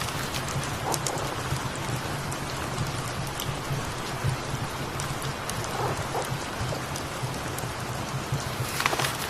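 Steady rain falling on a surface, with scattered sharp drip ticks and a brief louder rustle just before the end.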